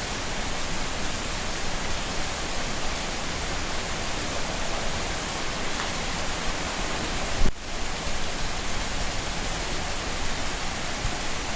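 Steady, dense rain falling, an even hiss. About two-thirds of the way through there is a brief low thump, and the rain drops away for a moment before it resumes.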